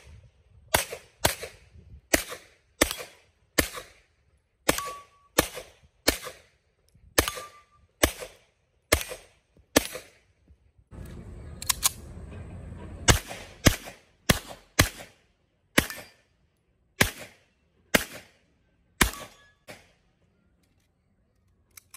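Semi-automatic pistol shots fired in quick strings, about one to two a second, with a pause of about three seconds near the middle; the shooting stops a couple of seconds before the end.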